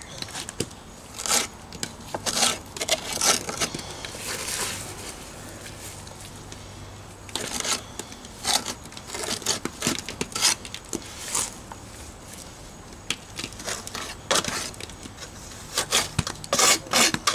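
Stiff mortar being scraped and pressed into the joints of thin stone veneer with a steel jointing tool and gloved fingers: irregular short scraping strokes in bursts, with quieter stretches between.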